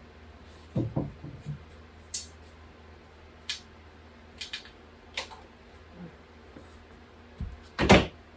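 Handling noise from measuring and marking drywall: short scratchy strokes and light knocks scattered through, with a heavier thump near the end, the loudest sound.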